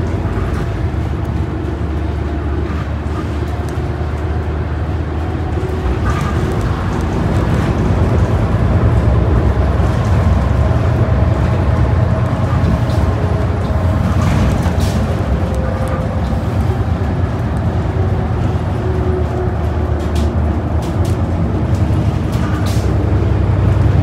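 Cabin sound of a New Flyer Xcelsior XD40 diesel bus under way: the Cummins L9 engine and Allison B400R transmission give a steady low rumble with road noise, getting louder about eight seconds in. A few brief rattles from the bus body come through.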